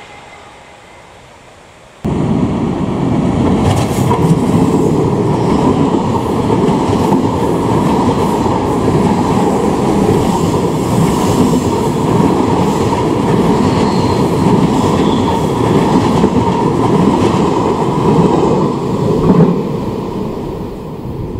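Electric passenger train of SBB intercity coaches, with a red locomotive, running close past on a viaduct: loud, steady wheel-on-rail noise that starts suddenly about two seconds in and lasts to the end. Before it, a train's sound fades away.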